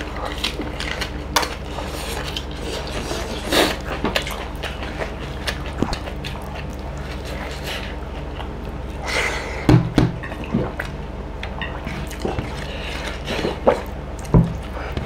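Eating sounds: chewing, and fingers working food on steel plates with scattered clicks and clinks, over a steady low hum.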